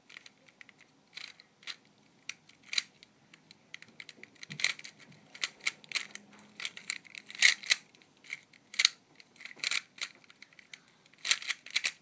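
Rubik's Cube layers being twisted by hand: more than a dozen sharp plastic clicks and clacks at an uneven pace, about one turn a second, some louder than others.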